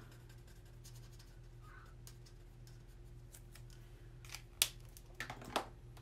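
Faint scratching of a Stampin' Blends alcohol marker's tip on cardstock as a small flower is coloured, with a few sharp clicks near the end.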